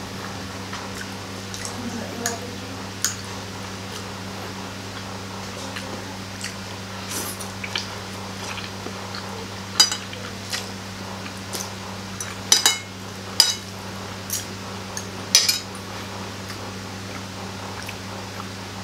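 Metal fork and spoon clinking and scraping against a plate in a dozen or so short sharp clicks, with the slurping of noodles being eaten, over a steady low hum.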